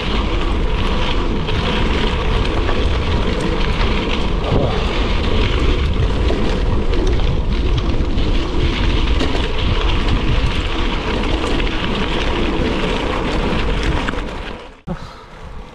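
Gravel bike riding at speed: wind rumbling on the camera's microphone over the crunch of tyres on the road surface. The noise drops off suddenly about fourteen and a half seconds in.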